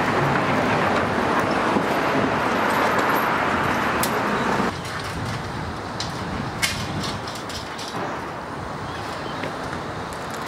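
Steady outdoor background noise, a hiss with a low rumble, that drops in level about halfway through, with a few light clicks after the drop.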